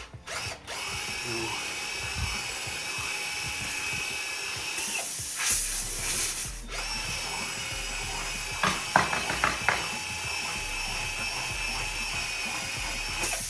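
Power drill running steadily, its bit boring into a car tire's tread to widen a puncture hole for a plug, with a few short clicks near the middle.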